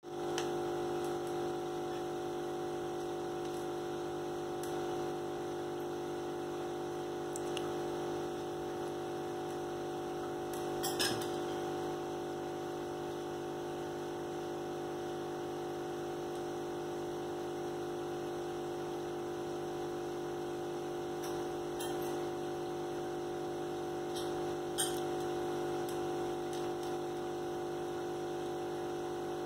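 Aquarium running: a steady hum with water bubbling from an air-driven sponge filter, and a few faint clicks.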